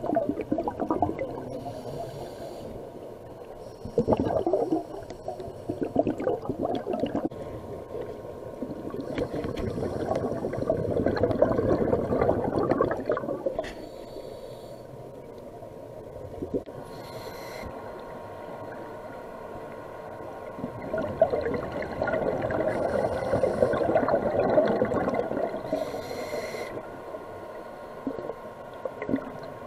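Scuba diver breathing through a regulator underwater: a short hiss on each inhale and a longer gurgling rush of exhaled bubbles, repeating over several slow breaths.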